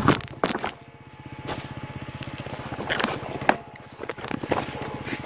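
Yamaha WR250R's single-cylinder four-stroke engine running at low revs as the bike is dropped: a hard knock right at the start and another half a second later, then scuffing, with more knocks about three seconds in.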